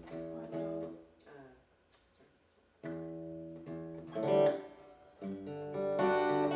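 Acoustic guitar played in separate chords with pauses between them, test chords during a sound check after a request for more bass on the guitar. A louder strum comes about four seconds in, and a fuller chord rings on near the end.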